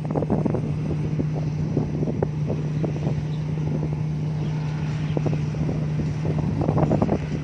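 Rice combine harvester running: a steady engine drone with constant irregular clattering and knocking from the machinery.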